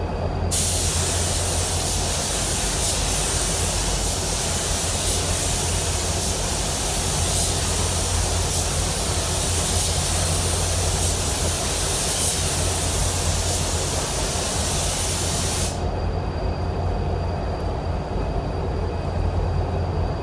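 Automotive paint spray gun hissing steadily as it lays solvent basecoat onto a truck bedside. The hiss starts about half a second in and cuts off suddenly about three-quarters of the way through, over a steady low hum of paint-booth ventilation.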